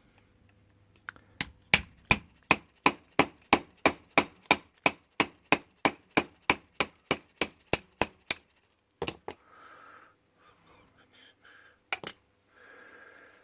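Hammer tapping a pin punch to drive a pin out of a brass Ilco padlock body: a steady run of about twenty sharp taps, roughly three a second, followed by a couple of single knocks.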